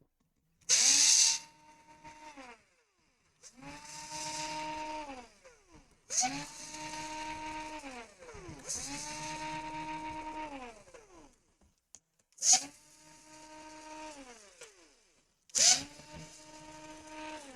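Small electric screwdriver running in six short runs of about two seconds each, every run spinning up, holding a steady whine and winding down, backing out laptop screws.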